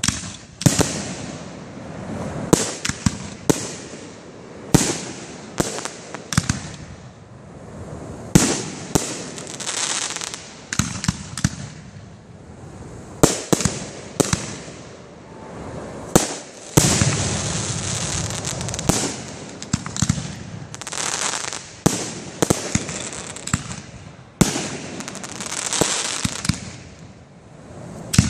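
Aerial fireworks display: dozens of sharp shell bursts in quick, irregular succession, with spells of hissing crackle between the bangs.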